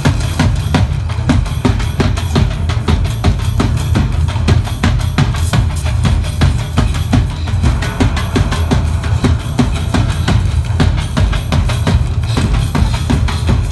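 Loud show music built on fast, steady drumming, with a heavy bass drum and sharp drum strikes in a driving rhythm.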